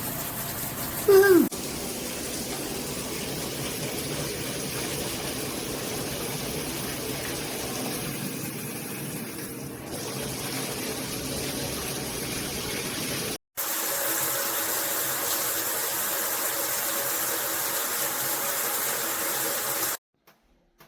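Water spraying steadily from a high-pressure rainfall shower head and handheld shower combo, with a brief loud falling tone about a second in. The rush breaks off for an instant near the middle, carries on, and cuts off suddenly just before the end.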